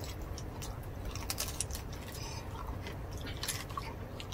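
Close-up chewing and biting on roast pork, with irregular short crisp crunches of crackling lechon skin over a steady low hum.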